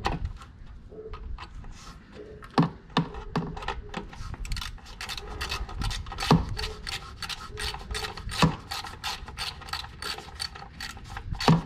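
Hand socket ratchet turning the oil drain screw on a Yamaha 200 outboard back in: a run of quick pawl clicks, about four or five a second, with a few louder knocks between strokes.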